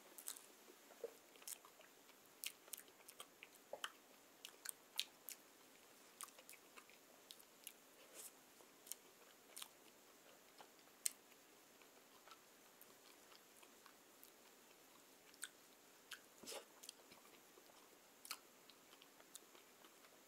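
Faint, scattered mouth clicks and smacks of someone chewing soft, cream-filled bread rolls.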